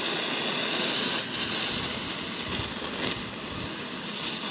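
Handheld gas-cartridge blowtorch burning with a steady hiss, its flame played on a rusted steel joint to heat it loose.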